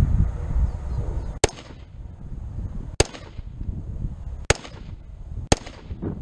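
Springfield Saint Edge AR-15 rifle firing 5.56 rounds semi-automatically: four single shots, the first about a second and a half in, then spaced about a second and a half, a second and a half, and one second apart.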